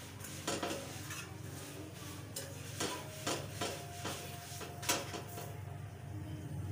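Stainless-steel spatula scraping and knocking against a flat tawa griddle as a paratha is pressed and turned on it: a run of sharp metal clicks, the loudest about five seconds in.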